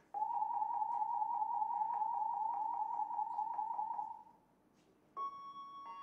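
Building fire alarm system under test: an electronic tone pulsing rapidly, about seven beeps a second, for about four seconds, then stopping. After a short pause a sustained electronic chime of several steady tones starts near the end.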